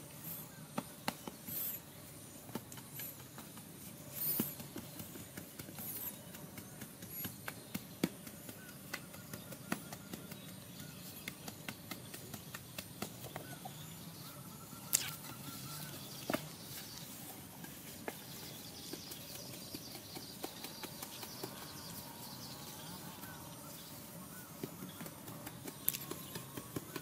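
Hoes chopping and scraping into soil, irregular knocks and scrapes as a trench is dug by hand, with the sharpest strikes about halfway through.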